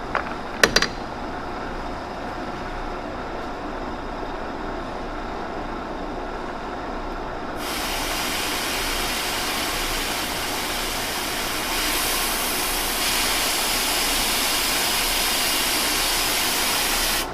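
Steady machine-shop hum with two light clicks near the start. About eight seconds in, a loud, even hiss like escaping air starts, gets louder about four seconds later, and cuts off suddenly.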